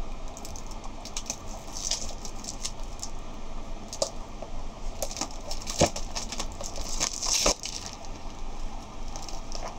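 Wrapping being cut and pulled off a sketchbook: scattered clicks, scratches and crinkling, with louder crinkly bursts about two seconds and seven seconds in and a couple of sharp clicks between.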